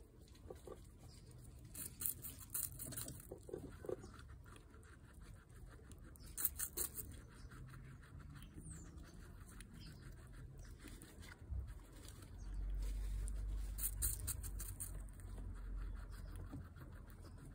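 Guinea pig biting into and chewing a fresh apple slice: bursts of crisp crunching bites, with quieter chewing between them. A low rumble runs for a few seconds past the middle.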